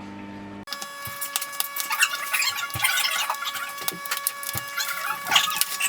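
Dense crackling and clicking handling noise with a few sharp knocks, over a faint steady whine.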